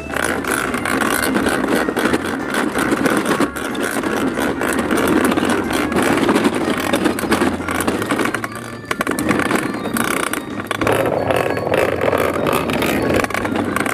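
Plastic toy dump truck loaded with toy cars being pushed along the ground: a continuous rolling rattle of its plastic wheels and jostling load.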